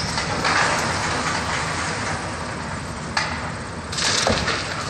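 Wrecking-ball demolition of a brick and concrete building: broken masonry and debris crumbling and falling, with crashing and cracking. Fresh crashes come about three seconds in and again near four seconds.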